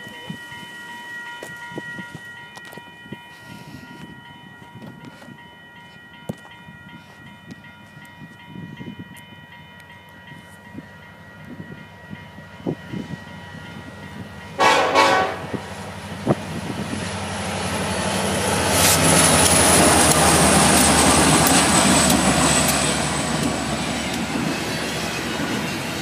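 Union Pacific freight train led by SD70ACe and SD60M diesel locomotives sounding a multi-chime air horn as it approaches for the first half, with one short loud blast about fifteen seconds in. The rumble then builds as the locomotives pass at speed, followed by double-stack intermodal cars rolling by with clickety-clack.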